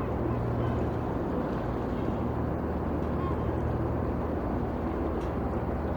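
Ship ambience: a steady low engine hum under the wash of water lapping, with a few faint bird calls here and there.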